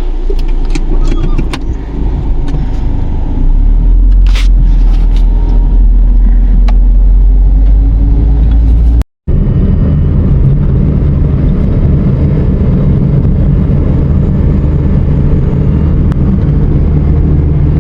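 Low steady rumble of riding in a moving vehicle, with a few light clicks in the first seconds, louder from about three and a half seconds in. A cut about nine seconds in switches to a steadier, even drone.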